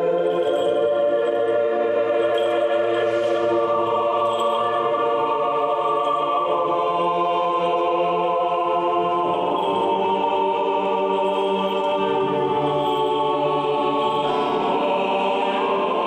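Choral music: a choir singing slow, long-held chords that shift every few seconds.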